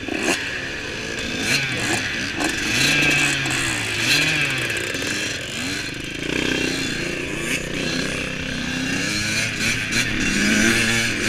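Dirt bike engines revving as a group of riders pulls away on a trail, the nearest engine rising and falling in pitch again and again as the throttle is worked.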